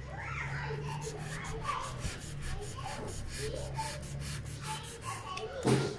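Knife blade sawing through a block of polystyrene foam in repeated rubbing, scraping strokes, with a sharp click near the end.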